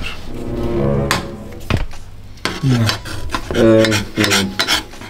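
A person's drawn-out wordless vocalizing, with two sharp clicks of a metal spoon against a nonstick frying pan about a second in and shortly after.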